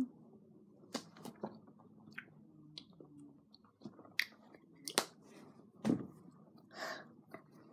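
Mouth sounds of chewing hard, chewy bonbon sweets: irregular wet smacks and clicks, a few of them louder.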